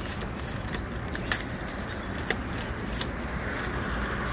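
Packaging and small loose mounting hardware being handled: a few separate sharp clicks over a steady background hum.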